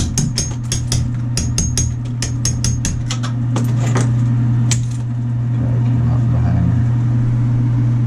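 Hammer and chisel chipping out old tile and its wire-mesh-reinforced mortar bed: about fifteen sharp, ringing metallic blows in quick runs of two or three, stopping about five seconds in. A steady low hum runs underneath.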